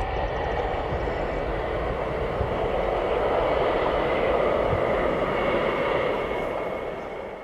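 Jet airliner engines running with a steady rushing noise and a high whine, the sound easing off near the end.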